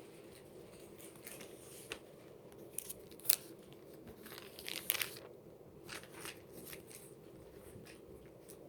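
Thin Bible pages being turned and leafed through, with irregular short papery rustles and crinkles, the loudest about three and five seconds in, over a faint steady room hum.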